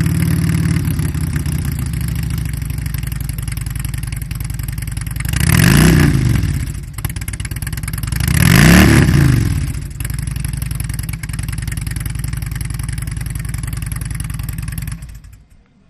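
Harley-Davidson touring motorcycle's V-twin engine running through 3-inch Firebrand Rip-Rod slip-on mufflers: idling steadily, revved up and back down twice (about five and eight seconds in, the second a little louder), then switched off about a second before the end.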